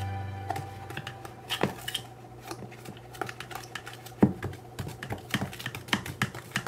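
A plastic spoon stirring a crumbly white mixture in a glass bowl: irregular clicks, taps and scrapes as it knocks against the glass, with a few louder knocks.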